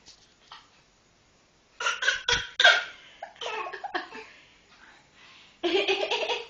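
Bursts of laughter and giggling in two spells, the second short one near the end.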